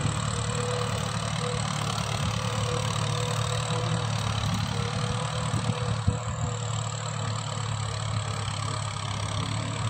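Farm tractor's diesel engine running steadily as it pulls a disc plough through the soil, with a brief knock about six seconds in.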